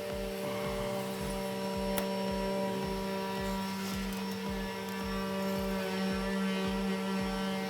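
A steady, even hum with a faint, regular low pulse beneath it, and a single sharp click about two seconds in.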